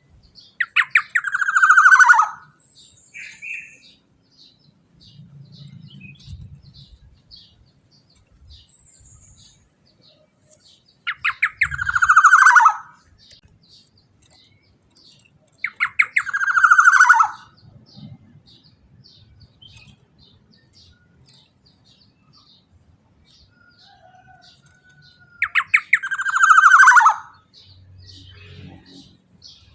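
Black-naped oriole singing in the fast 'teler' style: four loud calls, each a quick run of notes sliding down in pitch, with faint rapid high chirps in between.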